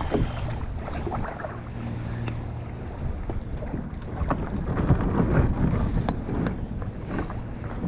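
Wind buffeting the microphone over lapping water, with splashes and knocks from a plastic kayak being paddled up to the shore; the loudest stretch is about five seconds in.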